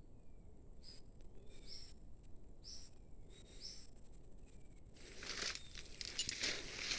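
A bird giving short high calls, roughly one a second, each followed by a fainter falling note, over a steady thin high tone. From about five seconds in, loud crackling and rustling takes over.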